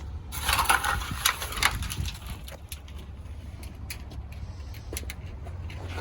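Scrap metal being handled at the curb: a burst of scraping and clattering early on, then scattered light knocks and clicks, over a steady low rumble.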